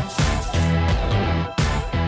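Loud theme music for a TV segment's animated title sequence, with a heavy low beat. Short breaks cut in about every one and a half seconds.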